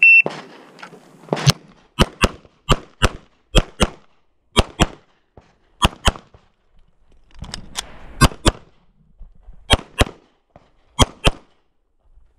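Shot timer beeps once, then a CZ SP-01 Shadow 9mm pistol fires about eighteen shots, mostly in quick pairs a quarter-second apart, with short pauses between pairs.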